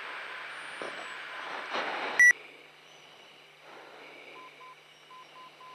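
Steady rushing noise in an F-15C Eagle's cockpit in flight for about two seconds, cut by one short, loud high beep. After it the noise drops away and a faint tone beeps on and off in an uneven pattern.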